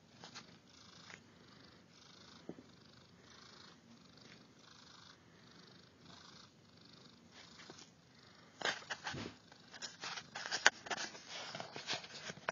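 Persian cat purring close by, a soft rhythmic purr that rises and falls with each breath. About two-thirds of the way through, loud crackling rustles and knocks break in over it.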